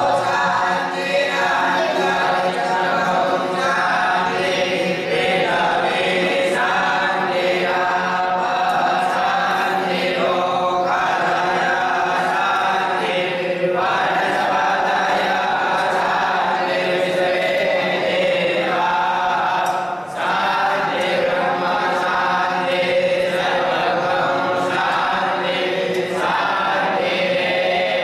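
Many voices chanting together in unison, a devotional chant sung in phrases a few seconds long.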